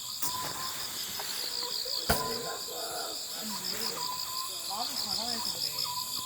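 Crickets chirping in a steady, even pulse, with one sharp click about two seconds in.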